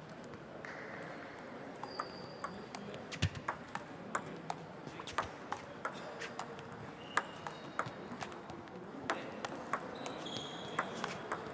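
Table tennis ball clicking off rubber paddles and the table in a rally: a quick, irregular run of sharp clicks that begins about two seconds in and keeps going almost to the end.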